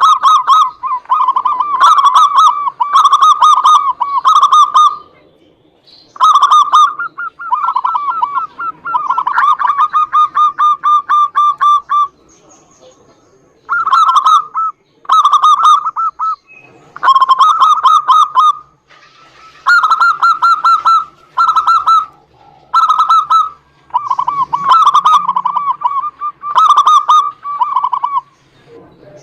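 Zebra doves (perkutut) cooing loudly: phrase after phrase of rapid staccato notes, each burst about a second long with short pauses between.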